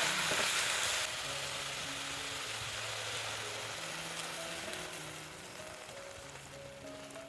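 Food sizzling in a hot pan, with background music of held notes. The sizzle drops sharply about a second in and fades away.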